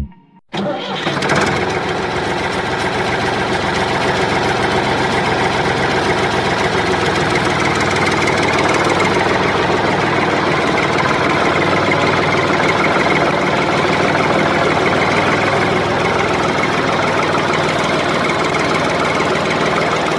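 An engine starts about half a second in, then runs steadily at an even speed with a dense mechanical rumble and buzz.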